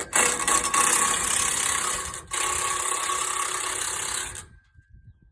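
A power tool running on a bolt being removed from the Jeep's front end, in two spells with a brief stop after about two seconds. It stops about four and a half seconds in.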